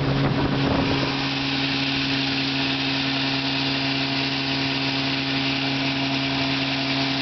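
1955 Johnson 5.5 hp CD-12 two-stroke, two-cylinder outboard motor running at a steady speed, holding one even pitch.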